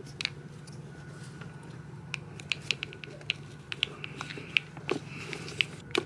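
Sharp plastic clicks and snaps, scattered and quickening through the second half, as a clutch pedal start switch is pried and pulled off a clutch master cylinder's pushrod by hand. A low steady hum runs underneath.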